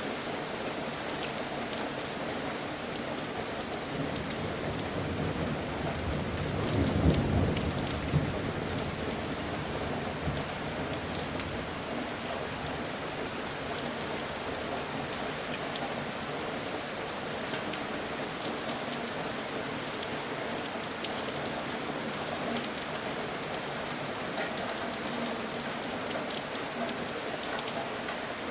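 Steady rain falling, with a short, low rumble of thunder that swells and fades about seven seconds in.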